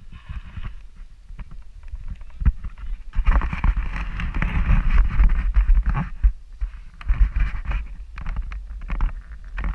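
A mountain bike rolling over dry, gravelly dirt, its tyres crunching and the bike rattling, with wind buffeting the action camera's microphone. The noise swells about three seconds in and again about seven seconds in.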